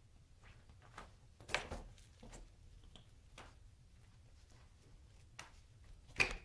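Birman kittens at play: scattered light taps, knocks and rustles of paws and a toy on a quilt and tile floor, with two louder knocks, one about one and a half seconds in and one near the end.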